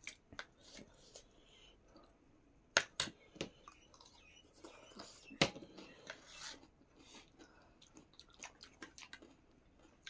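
People chewing food close to the microphone, with many short sharp clicks and taps. The two loudest come about three and about five and a half seconds in.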